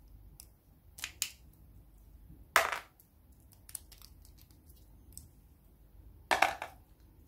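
Handling noise from unwrapping a red charging cable and the cardboard box packaging: two light clicks about a second in, then two short scraping rustles, one under three seconds in and one near the end.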